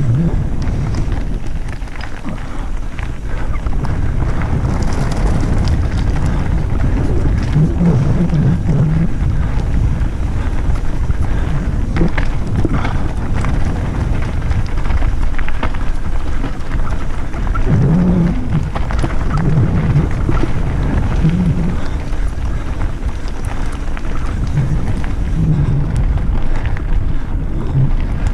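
Mountain bike descending a rocky gravel singletrack at speed: a constant low wind rumble on the camera microphone, with tyres crunching over gravel and stones and frequent clicks and rattles from the bike over bumps.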